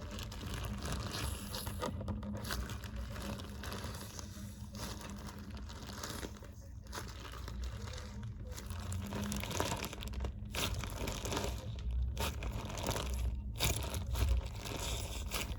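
Homemade squishy bag (a plastic bag filled with soap and a little water) being squeezed and squished by hand: steady crinkling of plastic with wet squelching, broken by a few brief pauses.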